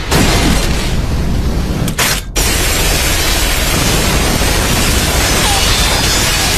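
Loud, dense rumbling blast noise like explosions, with a brief break about two seconds in.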